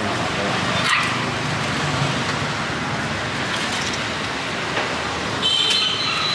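Steady street traffic noise, with a single click about a second in and a high, steady tone lasting about a second near the end.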